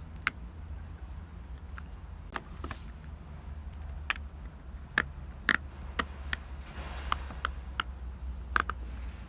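Irregular sharp clicks and taps of small toys being handled, over a steady low rumble of city traffic.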